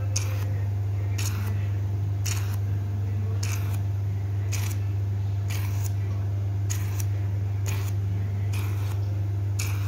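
Hydrafacial machine running with a steady low hum, and a short hissing pulse about once a second from the handpiece as it works over the skin.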